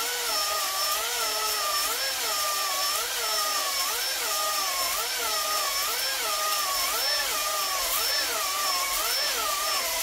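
Drill-driven ball hone spinning in a cast-iron Miata engine cylinder, with abrasive hiss over the whine. The whine rises and falls about once a second as the hone is worked up and down the bore and the speed is varied to lay a 45-degree cross-hatch.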